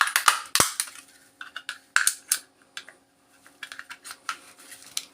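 Flathead screwdriver prying at a plastic power adapter case: irregular sharp plastic clicks and clacks, with a short pause about three seconds in.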